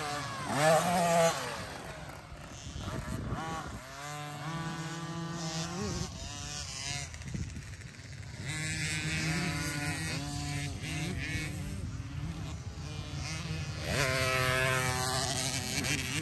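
Dirt bike engines revving as bikes pass, their notes rising and falling and then held high for a second or two at a time. The loudest moment comes about a second in.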